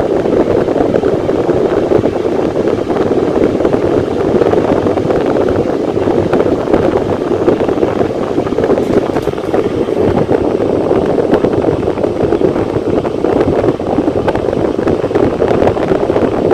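Electric fan running steadily: an even, loud rush of air with a low, hollow tone.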